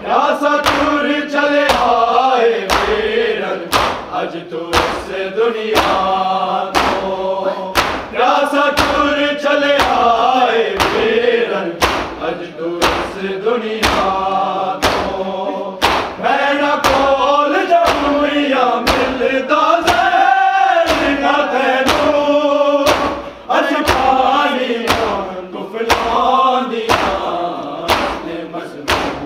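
A group of voices chanting a noha, a mourning lament, in unison over steady rhythmic thumps about one and a half a second, the beat of matam chest-beating that keeps time with the recitation.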